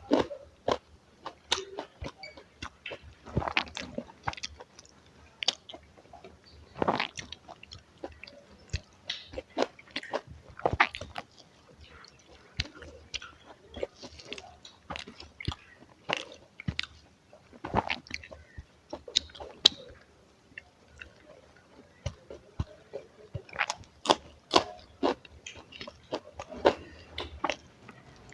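Close-miked eating: chewing with frequent crisp, crunchy bites at an irregular pace, typical of fried snacks such as pakora.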